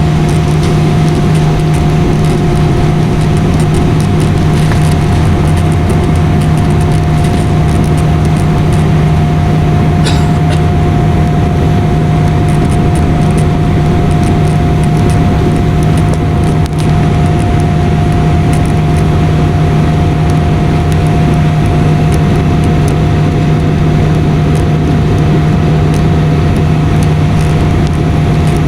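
Airliner cabin noise in flight: a steady engine and airflow drone with a constant low hum and a higher steady tone. A brief click about ten seconds in.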